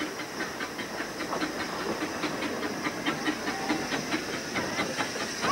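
Talyllyn Railway No. 4, a small narrow-gauge Kerr Stuart saddle-tank steam locomotive, running in slowly and getting closer. There is a steady steam hiss with a quick, even ticking beat of about four to five a second.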